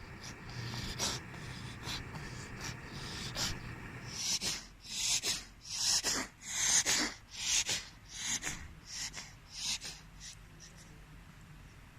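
A pet's breathing episode: a rapid run of short, hissy, snorting breaths or coughs, about two a second, starting about a third of the way in and fading out after some six seconds. The owner suspects coughing or asthma.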